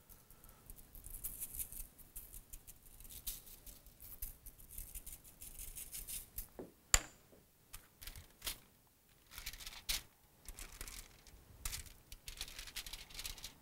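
A shaker of seasoned salt shaken over chicken on a foil-lined tray: light, repeated rattly shakes of the grains, with one sharp click about halfway through. Near the end, the chicken is handled on the crinkling foil.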